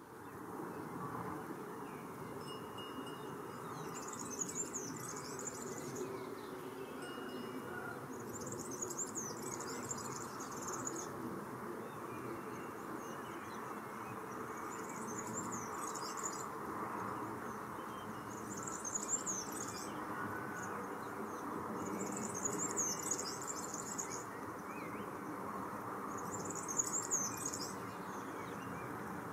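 European serin singing: about seven bursts of high, fast, jingling song, each one to three seconds long, with short pauses between, over a steady background noise.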